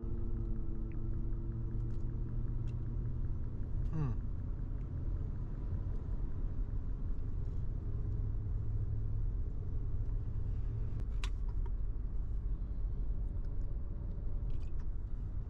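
Motor vehicle on the move: a steady low rumble of engine and road noise. A short falling tone sounds about four seconds in.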